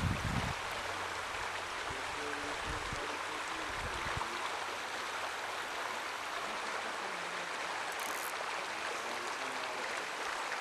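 Small mountain trout stream running: a steady rush of flowing water, with a few low bumps in the first four seconds.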